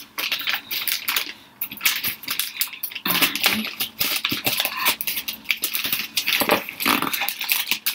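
A parcel being opened by hand: irregular rustling, crinkling and scraping of its packaging, with many small clicks and crackles.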